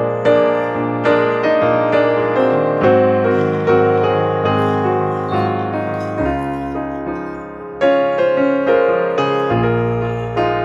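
Slow solo piano music: a note struck about once a second, each fading away, over held bass notes.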